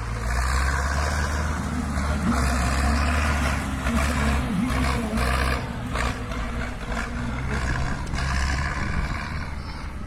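Zetor tractor's diesel engine running loud and steady, with small rises and dips in level.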